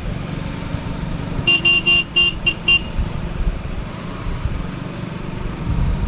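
A vehicle horn beeping in a quick string of short toots about a second and a half in, over the steady low rumble of engines and tyres on the road.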